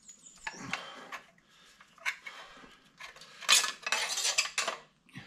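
Thin metal water pump plate and gasket being worked loose and lifted off the lower unit of a Yamaha 115 outboard: a run of light metallic clinks and scrapes, busiest and loudest about three and a half to four and a half seconds in.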